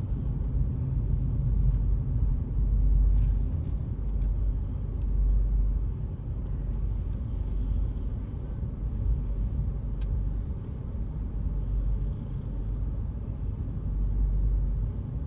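Steady low rumble of a car heard from inside the cabin: engine and tyre noise as it moves slowly through traffic.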